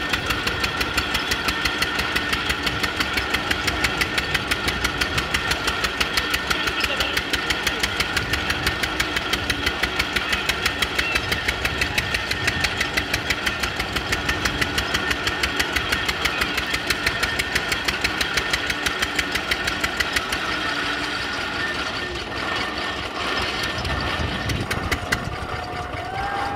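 Engine running with an even, rapid knocking beat, about three or four beats a second, which stops about twenty seconds in.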